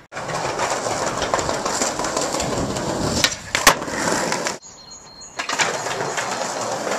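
Skateboard wheels rolling over concrete paving slabs with a steady, rough noise. Two sharp clacks of the board come a little past the middle, about half a second apart. A short break follows, then the rolling starts again.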